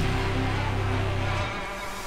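Background music with held bass notes; the bass drops out about a second and a half in.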